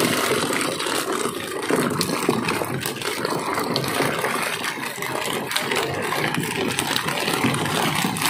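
Small fishing boat's engine running steadily, with a low, even drone.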